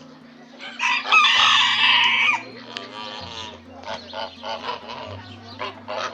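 A rooster crows once, one long call about a second in and the loudest sound, with chickens clucking in short calls around it.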